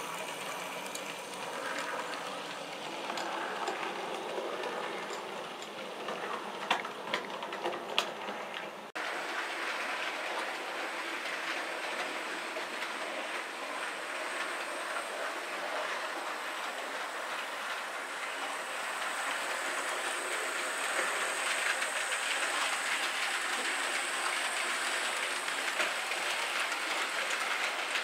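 Model trains running on a model railway layout: wheels rattling and clicking over the track with a few sharper clicks, then an abrupt change about nine seconds in to a louder, steadier run with a thin high whine.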